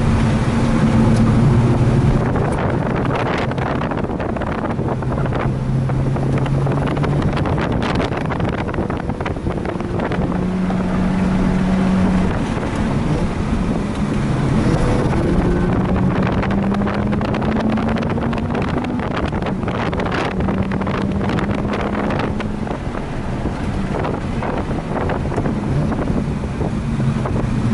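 Mazda RX-8's two-rotor rotary engine running hard on track, its note rising slowly and stepping to new pitches at gear changes, with wind buffeting the microphone.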